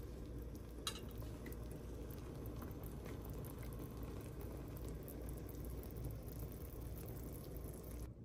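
Pot of soup with mushrooms, winter melon and pork belly simmering, a steady low bubbling, with one light click about a second in.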